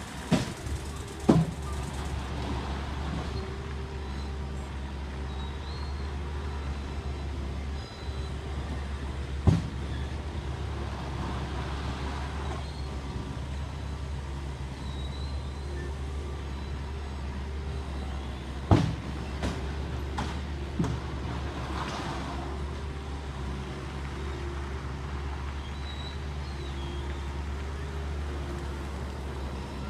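Heavy construction machinery running with a steady low drone, broken by a few sharp knocks. The loudest knocks come about a second in, nine seconds in and nineteen seconds in.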